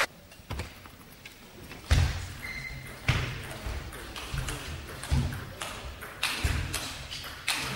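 Table tennis rally: the celluloid ball clicking off the players' rubber-covered bats and the table in an irregular rhythm, starting about two seconds in with the serve. Each hit comes with a dull low thud.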